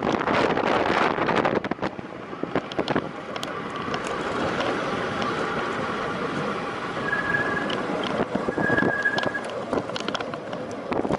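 Wind rushing over the microphone with the tyre and drivetrain noise of a time-trial bicycle ridden at race speed, loudest in the first two seconds, with scattered clicks. Two short high beeps sound a little past the middle.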